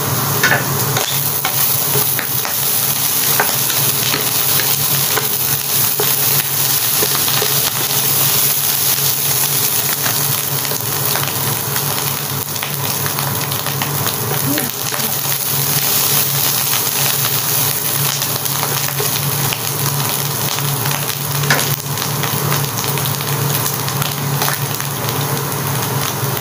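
Diced carrot, ham, hot dog, mushrooms and chicken frying in oil in a non-stick frying pan: a steady sizzle full of small crackles.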